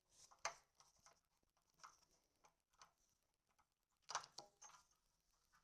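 Faint, scattered clicks and scrapes of a screwdriver working a screw in a cable box's casing, a few sharper clicks about half a second in and just after four seconds.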